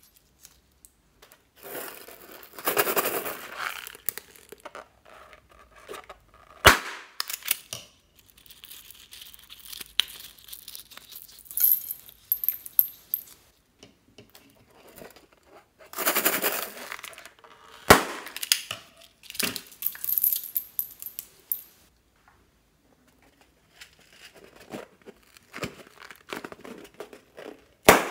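Small latex balloons being handled and cut open with scissors over a bowl of beads: rubber rustling and crinkling in several bursts. Sharp clicks come about a quarter of the way in and about two-thirds in, and a sharp snip of the scissors comes at the very end.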